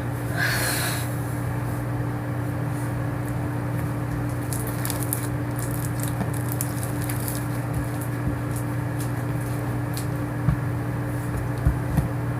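Homemade slime being handled and stretched, giving scattered small squishing clicks and pops with a few sharper taps near the end, over a steady electrical hum.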